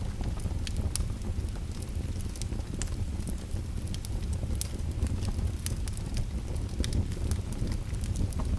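Fire crackling: a few sharp snaps and pops each second over a steady low rumble of burning.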